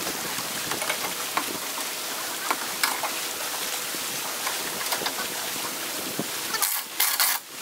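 Steady hiss of wind and choppy lake water, with scattered light clicks and knocks. The sound dips briefly near the end.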